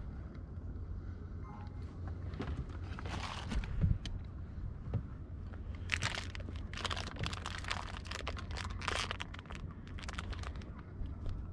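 Crinkling, crackling rustles close to the microphone, coming thick and fast from about six seconds in, over a steady low rumble.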